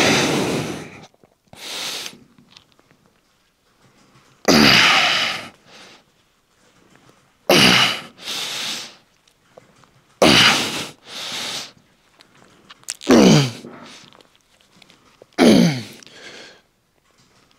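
A man grunting with effort on each rep of a heavy cable tricep pushdown top set. Loud grunts fall in pitch, about one every three seconds, five in all, several followed by a quick breath.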